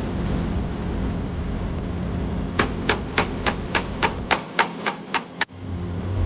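Hammer striking metal in auto body repair: about eleven sharp, ringing blows at an even pace of about four a second, starting near the middle and stopping suddenly, over a steady workshop background noise.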